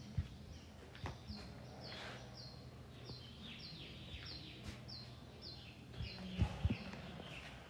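A bird calling over and over, short high chirps that slide downward, about two a second, over a steady low hum. A few low thumps come through, two of them close together near the end.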